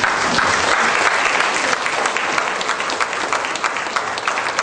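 An audience applauding, loudest in the first couple of seconds and thinning toward the end.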